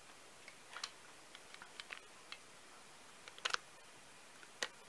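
Light plastic clicks and ticks from a Zuru X-Shot Reflex Revolver TK-6 toy foam dart blaster being handled, with a sharper double snap about three and a half seconds in and another single snap near the end.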